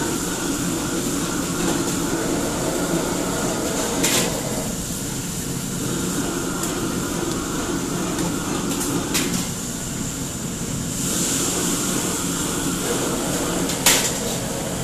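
Restaurant wok station: a steady roar from the gas wok burners and extraction hood fan, with a few sharp metal clanks of pans or utensils, the loudest near the end.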